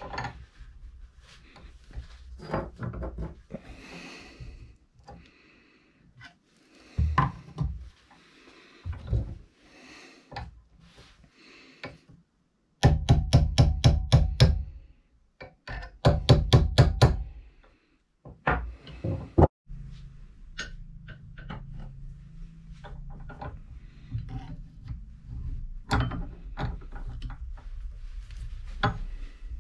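Woden M130 bench vice being reassembled by hand: light metallic clicks and rubbing as the spindle and sliding jaw are handled, then about halfway two quick runs of sharp hammer taps on the end of the sliding jaw, followed by more scattered clicks.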